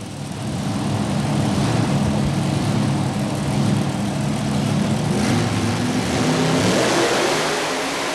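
Modified pulling tractor's engines running hard at full power under load during a pull. The engine note holds steady and grows harsher about five seconds in.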